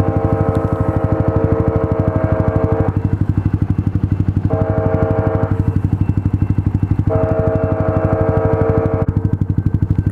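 Train horn blowing three blasts, long, short and long, over the steady fast pulsing of an idling motorcycle engine in neutral.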